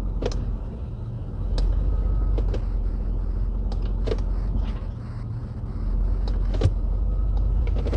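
Jeep Grand Cherokee WJ's 4.7 L V8 idling as it is shifted into gear, a steady low drone that sags briefly twice, with scattered sharp clicks and clunks over it.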